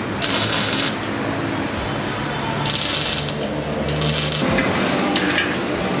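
Abrasive cutting disc grinding into the steel exhaust pipe in four short bursts, cutting through the pipe to take the muffler off.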